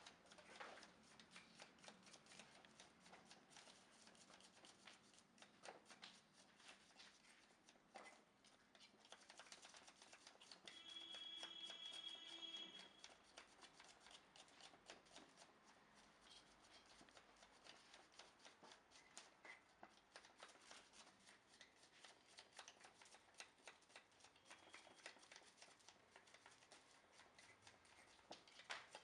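Near silence with a faint, dense crackling throughout, and a brief high tone with overtones lasting about two seconds near the middle.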